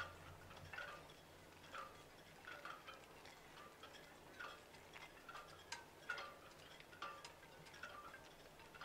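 Near silence, with faint, irregular short high ticks about once or twice a second.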